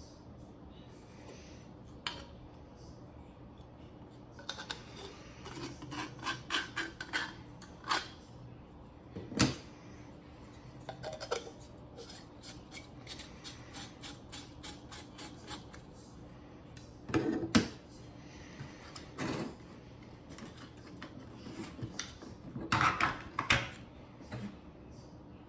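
3D-printed plastic parts of a filament spool winder clicking and knocking as they are handled and fitted onto the frame. There is a run of rapid clicks five to eight seconds in, then single sharp knocks, then a second burst of clatter near the end.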